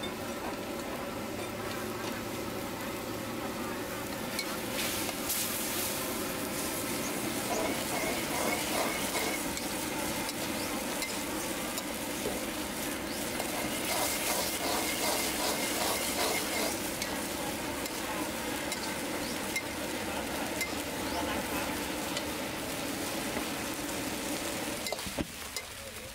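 Rad na gravy with vegetables bubbling and sizzling in a wok while a metal ladle stirs and scrapes against the pan in rhythmic strokes, over a steady hum.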